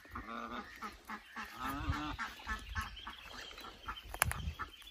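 Domestic goose giving low honking calls, two of them in the first two seconds, while its goslings peep in short high chirps. A sharp click comes about four seconds in.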